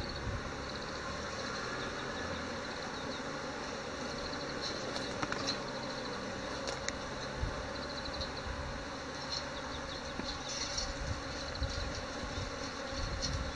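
A swarm of Japanese honeybees buzzing steadily as the cluster climbs up into an empty hive box fixed above it.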